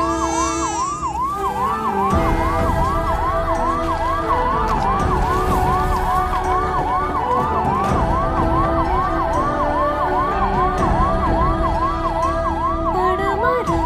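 Ambulance electronic siren on a fast yelp, about three up-and-down wails a second, with a low rumble joining about two seconds in.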